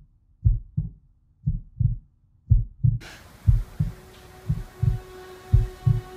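Heartbeat sound effect: paired low lub-dub thumps, about one pair a second. About three seconds in, a steady high-pitched drone with a hiss comes in under the beats.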